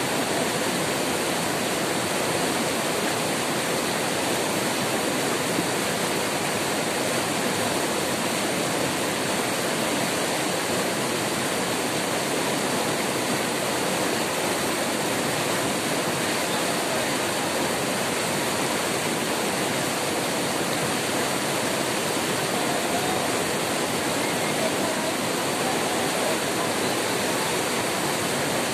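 River rapids, white water rushing steadily over large boulders.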